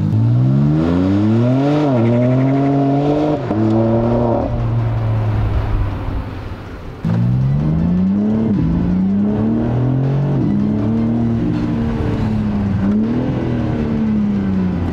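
BMW M4 Competition's twin-turbo straight-six, through a Remus sport exhaust with its valves open, heard from inside the cabin under hard acceleration. The revs climb and drop back at each quick upshift, ease off for a moment about six seconds in, then pull again through several more gears.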